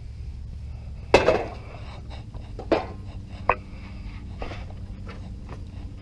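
Heavy round metal plate set down onto a wood-fired clay-pot stove: three metal clanks, the first the loudest, the last ringing briefly.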